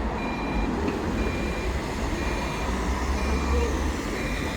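An electronic warning beeper sounding a short high beep about once a second, over the low rumble of a running vehicle engine.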